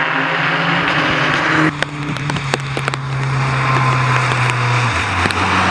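Rally car engine running hard with a steady note; about two seconds in the note breaks and a burst of sharp exhaust pops and crackles follows, typical of a gear change or lifting off the throttle. Near the end the engine note steps down in pitch.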